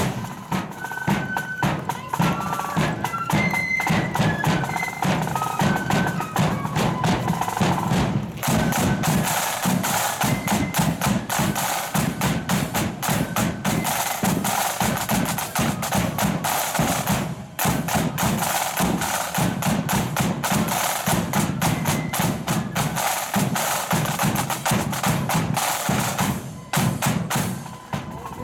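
Marching flute band's drum corps playing: side drums beat a fast, crisp rudimental pattern over bass drum. A few held flute notes sound faintly in the first several seconds, and the drumming drops for a moment about two-thirds in and again near the end.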